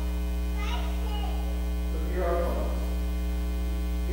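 Steady electrical mains hum with a ladder of overtones, with a man's voice faintly heard speaking in two short stretches, about half a second in and about two seconds in.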